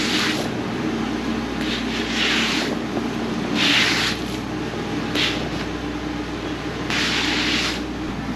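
A vehicle engine running steadily with a low hum, with five short hissing noises of about half a second each spread through it.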